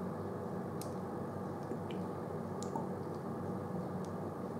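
Steady low background hum with a few faint, small clicks from handling while an e-liquid dropper bottle fills a rebuildable tank atomizer.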